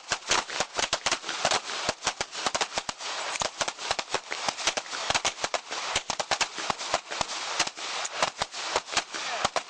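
Rapid, irregular gunfire from several guns firing at once, several shots a second with no pause.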